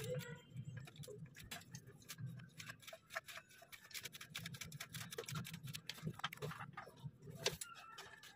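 Hands working a coolant hose and its metal hose clamp in an engine bay: faint, irregular small clicks and ticks over a low hum.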